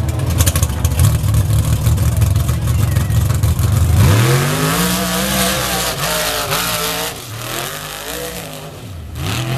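Unlimited-class mud drag truck's engine running steadily at the start line, then revving hard about four seconds in as it launches down the mud pit. The engine pitch rises and falls several times through the pass and climbs again near the end.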